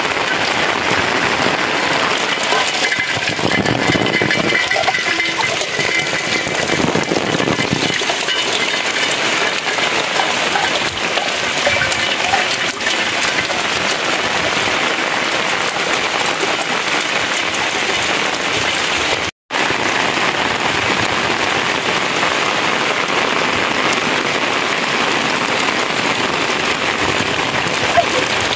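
Steady rain falling and splashing on wet ground and into standing water. It breaks off for an instant about two-thirds of the way through.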